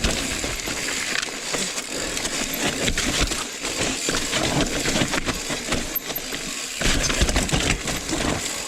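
Rocky Mountain Slayer mountain bike riding down a rough trail: tyres rolling over dirt and rocks with a constant clatter of the bike rattling over the bumps, and a heavier run of jolts about seven seconds in.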